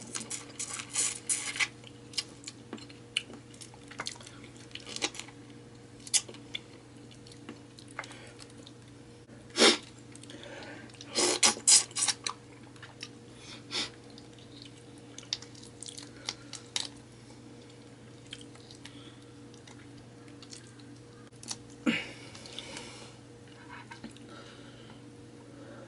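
Close-miked eating of seafood boil: chewing and crunching with many irregular sharp cracks, clicks and wet mouth sounds, busiest around ten to twelve seconds in. A faint steady hum runs underneath.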